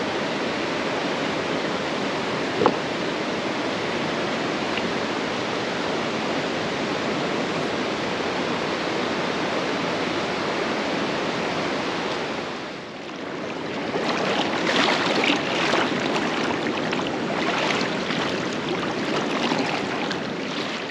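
Rushing mountain stream water, a steady, even rush. A single sharp click comes a few seconds in, and after a brief dip around thirteen seconds the water comes back louder and more uneven.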